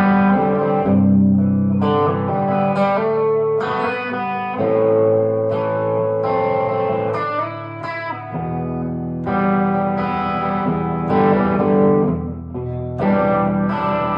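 1968 Gibson SG Junior electric guitar with its single P-90 pickup, played through an amplifier: chords are struck and left to ring, a new one every second or two.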